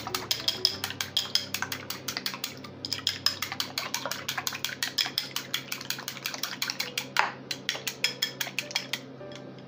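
Chopsticks beating raw eggs in a ceramic bowl: a fast run of clicks, about six or seven a second, as the sticks strike the bowl's side, with a brief pause about three seconds in and another near the end.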